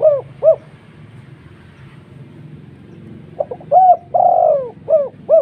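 Dove cooing loudly. It ends one phrase with two short notes at the start, then about three and a half seconds in sings a full phrase: quick short notes, one longer drawn-out note, then short notes again.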